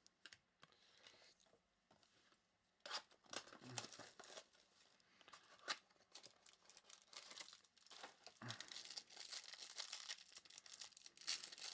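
Faint crinkling and tearing of trading-card pack wrappers, with scattered soft clicks of cards being handled. The crinkling grows denser near the end.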